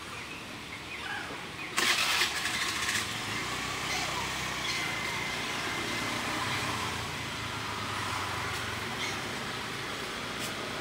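A loud burst of noise about two seconds in, lasting about a second, then a motor vehicle's engine running with a steady low rumble.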